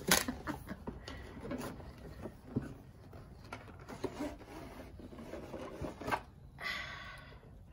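Handling noise from unpacking a boxed gimbal: scattered small clicks, knocks and rustles of packaging, with a short high-pitched squeak near the end.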